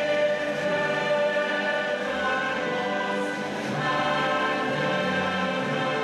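Choral and orchestral music with slow, held chords that change every second or two.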